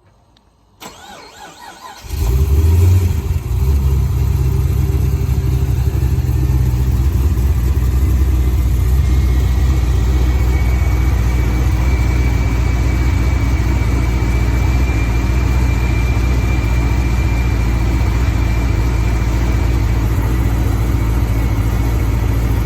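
Twin-turbo Gen 5 Chevrolet Camaro engine cranked over and catching about two seconds in, with a brief flare of revs before settling into a steady idle. A faint high whine rises over the idle for roughly ten seconds in the middle.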